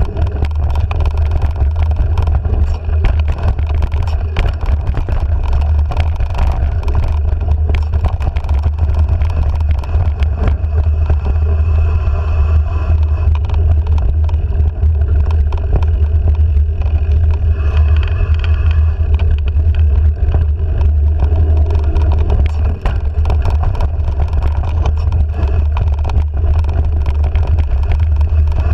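Wind buffeting the handlebar-mounted action-camera microphone as a bike rides a bumpy dirt singletrack, with the bike rattling over the bumps.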